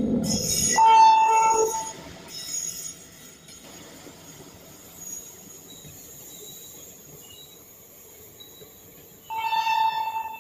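Electric-hauled passenger train passing close by: a loud low rumble at the very start that quickly drops to a fainter, steady running noise of the coaches. A loud, steady high ringing tone sounds for about a second shortly after the start and again near the end.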